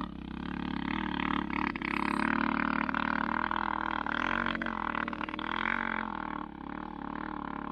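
Honda CRF450 dirt bike's single-cylinder four-stroke engine revving hard on a hill climb, its pitch rising and falling as the throttle is worked, with no letup.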